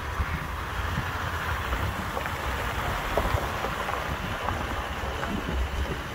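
Vehicle rolling slowly along a gravel road with wind buffeting the microphone: a steady low rumble and hiss with scattered small ticks.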